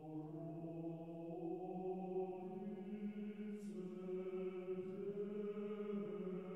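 Background music: a choir chanting in long, held notes that change pitch slowly.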